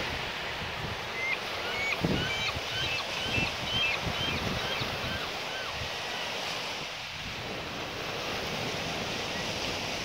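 Small ocean waves washing and breaking over shoreline rocks, with wind buffeting the microphone. About a second in, a quick run of faint high chirps lasts for a couple of seconds.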